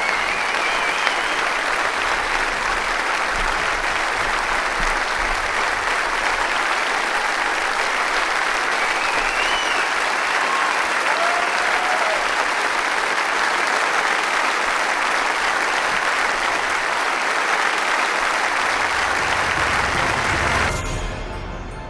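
Large auditorium audience applauding steadily, dying away near the end.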